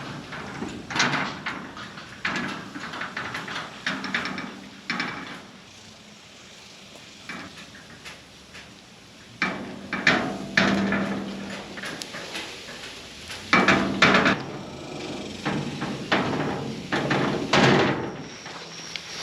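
Repeated knocking and rattling of a livestock catch pen's gate and panels as goats are penned, with a quieter spell in the middle.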